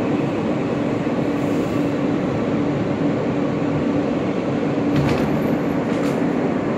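New York City subway trains moving through a station: a steady noise of wheels and motors under a constant hum, with two brief sharp high squeaks near the end.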